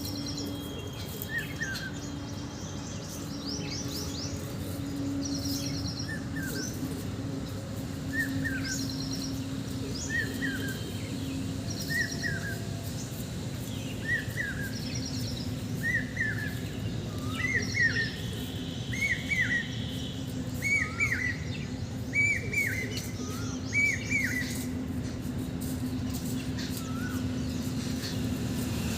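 Birds singing: one bird repeats a short down-slurred whistle, every couple of seconds at first, then faster and louder through the second half. Another gives bursts of higher chattering notes. A steady low hum runs underneath.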